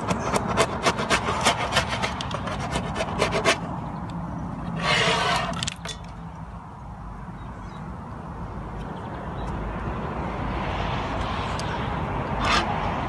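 Metal hive tool scraping wax and propolis off a beehive's inner cover in quick, rasping strokes for the first three seconds or so. A longer scrape comes about five seconds in and another brief one near the end, over a steady low rumble.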